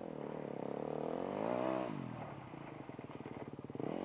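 Dirt bike engine revving up under acceleration, its pitch climbing to a peak about a second and a half in, then dropping as the throttle is shut off, running low until it revs up again at the end.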